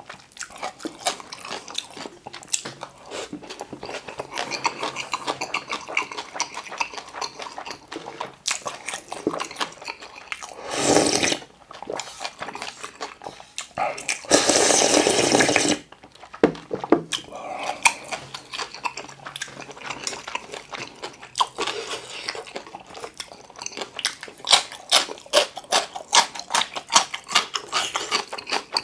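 Close-miked eating of curry ramen: wet chewing and noodle slurping, with a short loud slurp and then a longer loud slurp of broth drunk from the bowl about halfway through. Near the end the chewing turns into a quick run of sharp smacking clicks.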